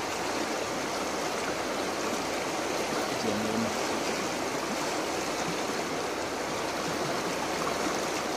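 A river running steadily: an even, unbroken rush of flowing water.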